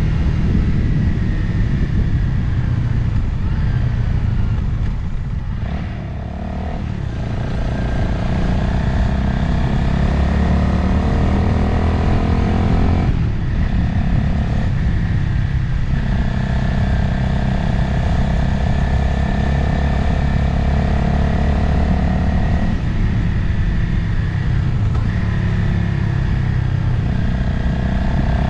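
Motorcycle engine running under way, its pitch rising and falling with the throttle, with wind noise on the microphone. The revs drop briefly about six seconds in, and again around thirteen seconds, as the throttle is eased or a gear changed.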